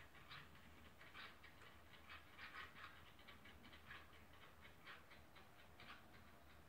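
Near silence: faint room tone with soft, short chirps repeating irregularly, a few each second.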